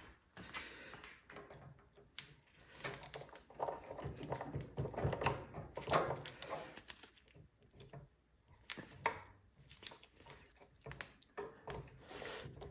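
Irregular clicks, knocks and light rattling of hand tools and metal parts as a generator's carburetor is worked loose, busiest about four to six seconds in.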